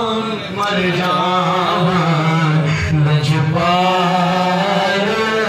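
A man singing a Punjabi naat into a microphone, holding long notes whose pitch wavers and bends.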